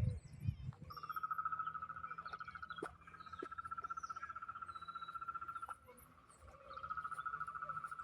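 A frog's long, rapidly pulsed trill, steady in pitch, running about five seconds, breaking off briefly, then starting again near the end. A few low thumps come right at the start.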